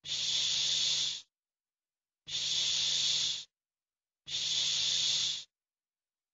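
A voice saying the English 'sh' sound, the voiceless palato-alveolar fricative /ʃ/, three times. Each is a steady hiss about a second long, with short silences between them.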